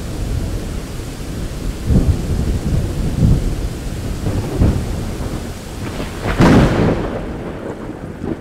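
Thunderstorm sound effect: steady rain with rolling thunder swelling several times, the loudest crack and rumble about six and a half seconds in.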